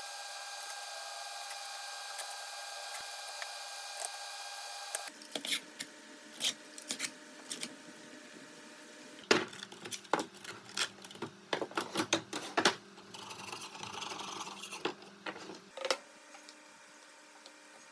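Woodworking shop sounds: a steady machine hum for about five seconds, then a run of irregular knocks and clatter of wooden boards, with a stretch of scraping or rubbing on wood near the middle.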